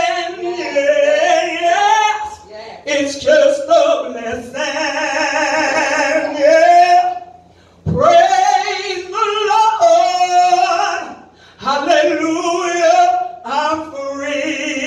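A solo woman's voice singing a slow gospel praise song, holding long notes with wide vibrato, with two short pauses for breath.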